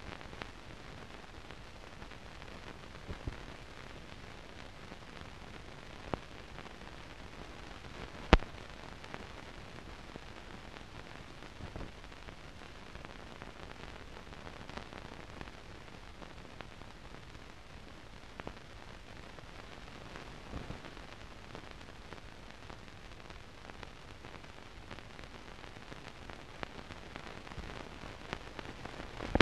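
Steady hiss with scattered clicks and pops, one sharp click about eight seconds in louder than the rest: the noise floor of a silent newsreel film transfer, with no recorded sound.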